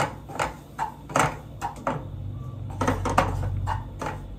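Wooden spatula stirring and scraping a thick mix of roasted wheat flour, ghee and jaggery in a frying pan: a run of short scraping strokes, two or three a second. A low hum comes in for a couple of seconds in the middle.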